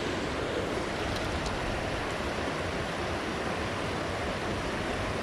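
Steady rushing of river water spilling over a small falls and rapids, an even hiss.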